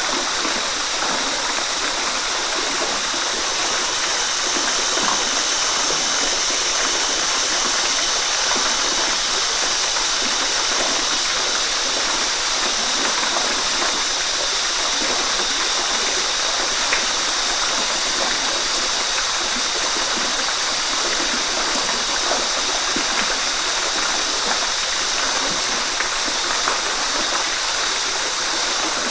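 Waterfall: a steady, unbroken rush of falling and splashing water, with most of its energy in the mid and high range.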